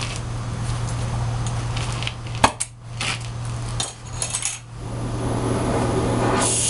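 Small metal parts and tools clinking as they are handled, with one sharp clink about two and a half seconds in and a few lighter ones after it, over a steady shop hum. Near the end a loud steady hiss starts: a gas brazing torch being opened up for silver brazing.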